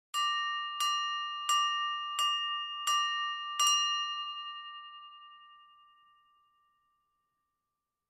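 Silver tableware struck six times in an even rhythm, about two-thirds of a second apart, each strike ringing with the same clear, high tone. The last ring dies away over about three seconds.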